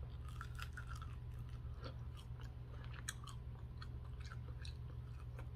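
Close-up chewing of a crispy fried chicken wing, many small crunches and crackles one after another, over a low steady hum.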